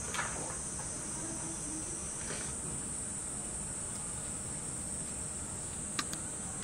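Steady high-pitched background hiss, with two light clicks about six seconds in.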